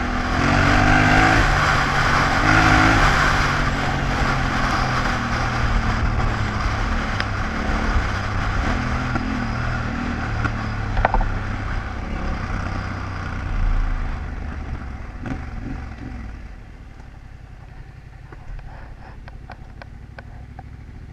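Yamaha Ténéré 700's parallel-twin engine running under way on a gravel lane, its pitch stepping up and down. About sixteen seconds in it drops to a quieter low idle, with scattered light clicks near the end.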